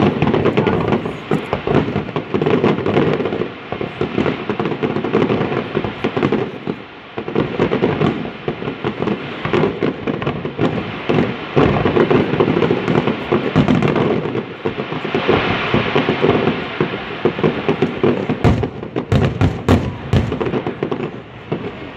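Fireworks display: a dense, unbroken barrage of shell bursts and crackling, many bangs overlapping, with sharper cracks near the end.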